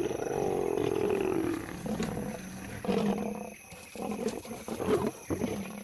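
Lions growling and snarling in a fight between a male lion and lionesses. A long snarl fills the first second and a half, a shorter one comes at about three seconds, and brief growls follow.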